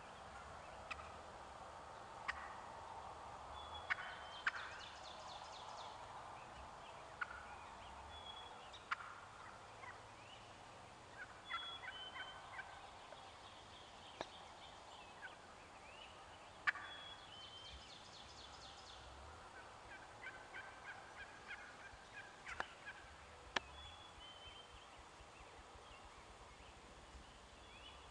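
Eastern wild turkeys calling faintly: several rattling gobbles among scattered short sharp calls and clicks, with small birds chirping.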